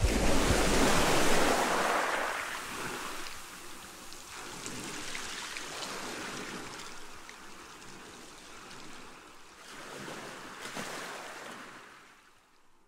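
Water splashing and rushing past a sailboat's hull, with wind noise on the microphone. It is loudest at the start, fades, swells again briefly near the end, then cuts off.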